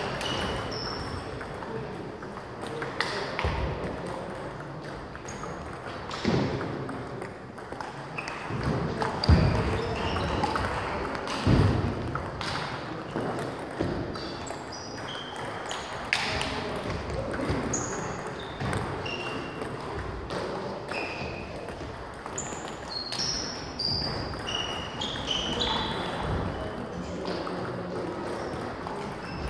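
Table tennis balls clicking off bats and tables in rallies, with irregular sharp ticks and knocks from several tables at once.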